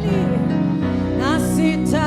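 Live gospel worship music: sustained keyboard chords over a steady bass, with a short gliding vocal phrase about a second in, between sung Swahili worship lines.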